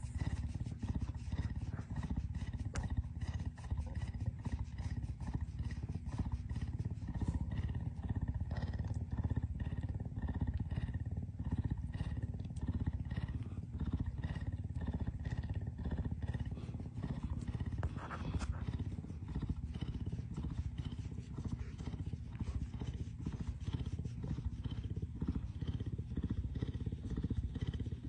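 Puma purring steadily while having its cheek and chin scratched, a continuous low, pulsing rumble: the cat is content.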